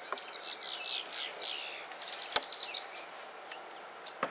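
A songbird singing: a run of quick, falling whistled notes, then a fast string of high chirps. A sharp knock about halfway through, the loudest moment, comes from the wooden hive cover being handled, and a smaller knock follows near the end.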